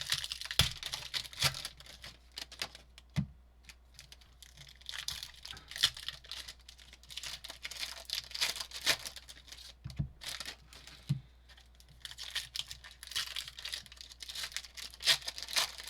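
Trading-card pack wrappers crinkling and tearing as packs are opened and handled, in irregular rustles with scattered sharp clicks and a quieter patch in the middle.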